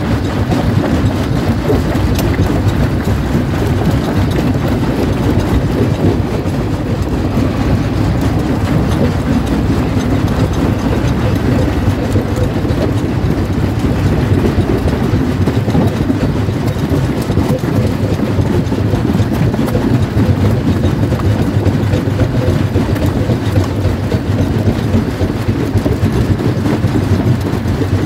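Jaw crusher crushing rock: a loud, steady low rumble with a constant clatter of stone.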